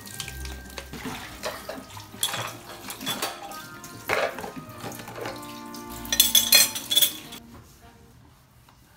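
Dishes, plastic cups and a steel bowl clattering and clinking in a stainless-steel sink while being rinsed under a running tap, with sharp knocks every second or so, some ringing briefly. It dies down near the end.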